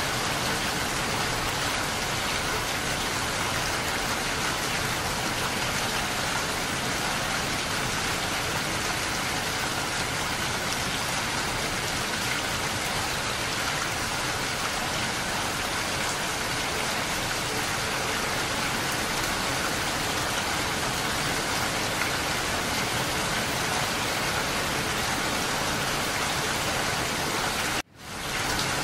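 Steady rain falling, an even, dense hiss with no let-up. Near the end it cuts out briefly and fades quickly back in.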